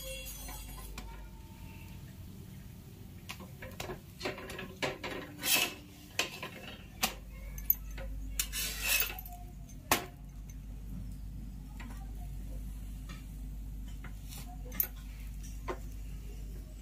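Metal spatula scraping and tapping on a tawa (flat griddle) as a stuffed paratha is pressed and turned, with a run of scrapes and sharp clicks mostly between about four and ten seconds in and a few more later.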